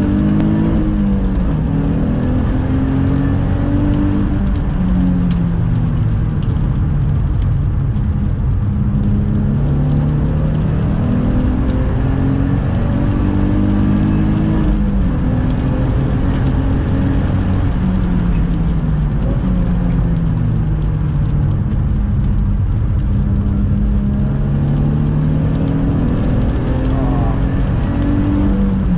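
Infiniti G35's 3.5-litre V6, heard from inside the cabin on a hard lap. The revs climb and fall away again several times as the car accelerates and slows.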